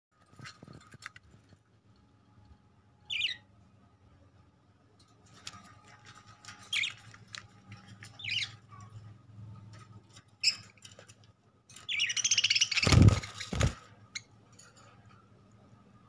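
Budgerigars chirping: a few short, high chirps spaced a few seconds apart, then a loud burst of chattering about twelve seconds in, with two low thumps within it.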